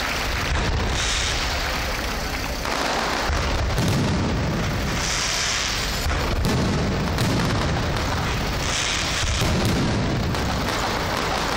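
Fireworks display: aerial shells bursting in a dense, continuous barrage of booms, with short bursts of high hiss about a second in, around five seconds and near nine seconds.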